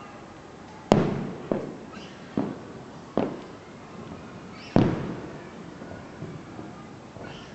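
Aerial firework shells bursting: five sharp booms with echoing tails, the loudest about a second in and just before five seconds, the others smaller in between.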